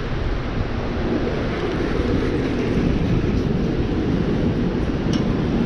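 Steady rushing of water pouring through a dam's open spillway gates and churning in the river below, heaviest in the low range.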